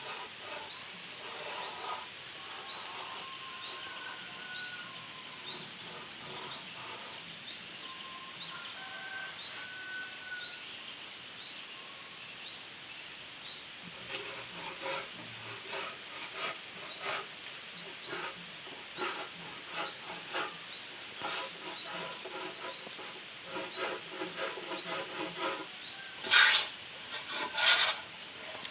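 Wooden hand plane being pushed along a board, shaving wood in repeated rasping strokes. The strokes begin about halfway and get much louder near the end, over a background of regularly repeated high chirps.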